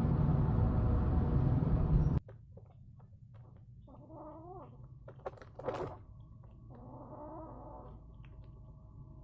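A loud steady noise, mostly low, cuts off suddenly about two seconds in. Then an angry kitten gives two short, wavering yowls a few seconds apart, with a few sharp clicks between them.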